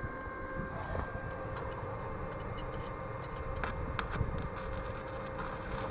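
Stick-welding arc from a small inverter welder, crackling steadily as a 2.5 mm electrode welds the steel column of an office chair, with a few sharper pops.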